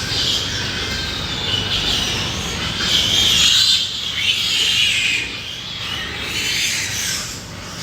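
Pigs squealing, high-pitched and noisy, loudest about three to four seconds in.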